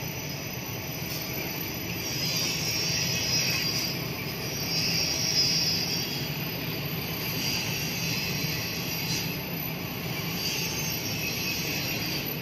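PE protective film coating machine running: a steady mechanical hum of motors and rollers, with a hiss that swells and fades.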